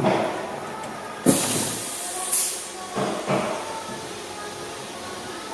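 Air-powered valve and diving nozzle of a semi-automatic volumetric liquid filling machine working: a sudden hiss of air about a second in, with a brighter hiss within it, then two short knocks a little past halfway.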